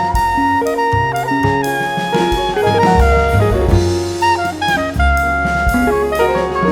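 Jazz instrumental music: a horn melody of held notes over a bass line and drum kit.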